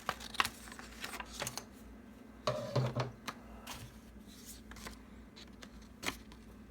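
Scissors snipping paper in a run of short, sharp clicks, trimming a paper picture down to size.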